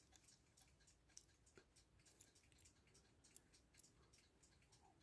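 Near silence with a few faint, irregular small clicks of metal tweezers against a brass clock movement.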